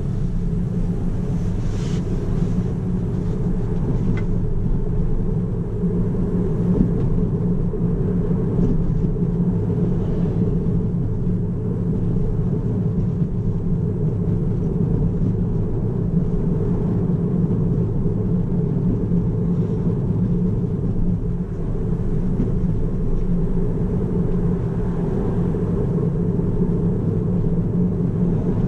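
Steady low rumble of road and tyre noise heard inside the cabin of a Tesla Model 3 long-range all-wheel-drive electric car driving on city streets.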